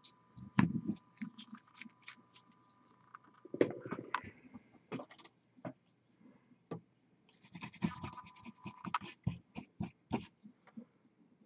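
Scattered small clicks and taps from handling miniature-painting gear (a paint bottle, brush and model), with a stretch of rapid scratching and crackling past the middle.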